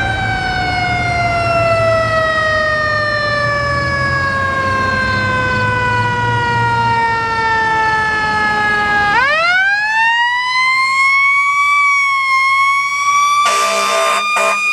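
Fire engine's mechanical siren in one long falling wail as it coasts down, then wound up again about nine seconds in and held high. Near the end, short repeated air horn blasts come in over it, and a low engine rumble lies under the first part.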